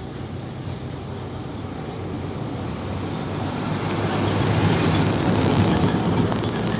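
Isuzu Giga 285PS tanker truck's diesel engine running as the truck drives past, with tyre noise. It grows louder as it approaches and is loudest about five seconds in, as it passes close by.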